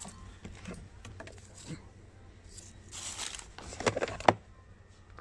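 Small packaged items being handled on a shelf: a rustle of packaging about three seconds in, then a few quick clicks and knocks, the loudest just before the end.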